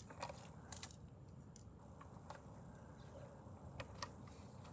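A few scattered light clicks and taps of something being handled, the loudest about three-quarters of a second in, over faint room noise.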